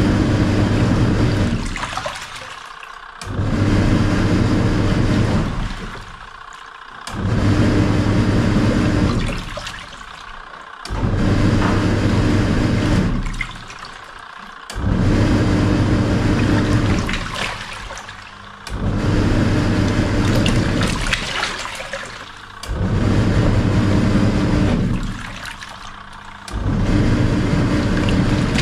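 Samsung SW-655P twin-tub washing machine on its wash cycle, with water sloshing throughout: the wash motor runs in stretches of about two and a half seconds with pauses of about a second between them, eight times over. Each stop-and-start is the pulsator reversing direction as it churns the water in the wash tub.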